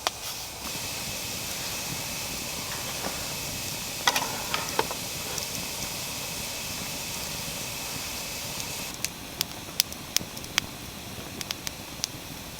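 Coleman Powerhouse pressure lantern hissing steadily, with a faint high tone running through the hiss. A few sharp clicks come about four seconds in, and a run of single clicks after about nine seconds.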